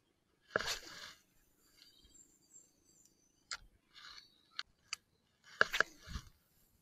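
Spinning rod cast and Shimano spinning reel retrieve: a swish about half a second in, then the reel winding with a faint hum and a few sharp clicks, and another rustle with a low thump near the end.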